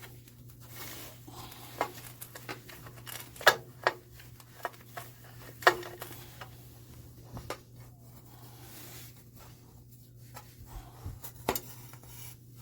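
Scattered sharp clicks and knocks of hands handling tools and hard parts, a few louder taps among them, over a steady low hum.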